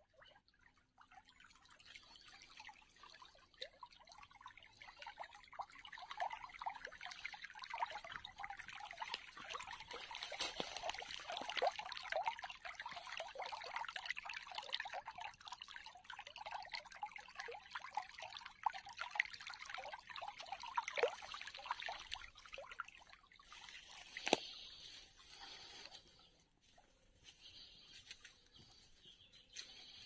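Shallow water trickling and babbling over stones in an irrigation channel, building up about a second in and fading out a few seconds before the end. A single sharp click near the end.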